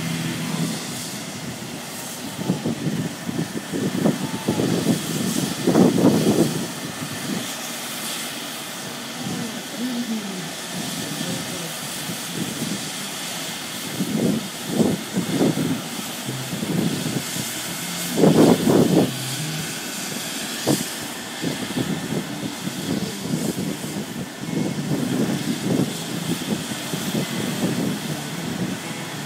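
Helicopter running on the ground before take-off: a steady turbine whine and rotor noise, with irregular louder surges.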